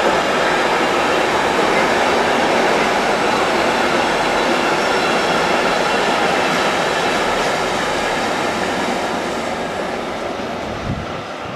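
Container freight train rolling past at close range, a steady noise of wheels on rail that eases off toward the end. A brief low thump near the end.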